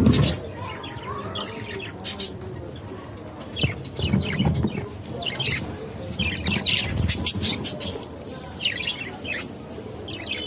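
Budgerigars chirping, many short sharp high-pitched calls scattered through, with a few low bumps in between.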